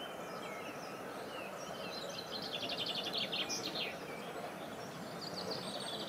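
Wild birds chirping and singing, with a fast rapid trill about halfway through, over a steady hiss of outdoor background noise, picked up by a camera's built-in microphone.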